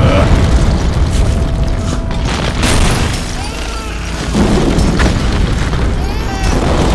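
Action-film fight soundtrack: deep booms and rumble under dramatic music, swelling near the start and again a little past halfway.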